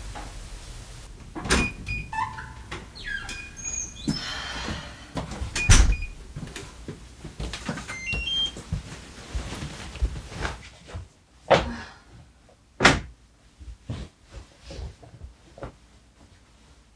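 An apartment front door being unlocked and opened, with clicks and short electronic beeps from its lock, including a short rising run of beeps about halfway through. Two thumps follow, then light footsteps and clothing rustle.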